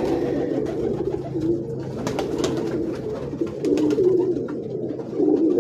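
Domestic pigeons cooing continuously, several birds overlapping, with a few short scratchy noises about two seconds in.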